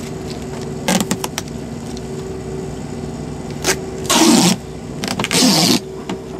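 Adhesive tape pulled off a roll in short, loud ripping bursts: one about a second in, then two longer pulls in the second half. A steady engine hum runs underneath.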